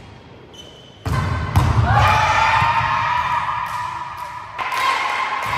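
A volleyball thudding on a court floor, starting suddenly about a second in, with voices in the background.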